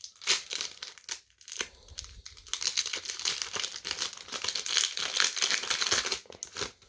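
A hockey card pack's wrapper being torn open and crinkled by hand, a dense crackling and rustling with many small snaps that stops shortly before the end.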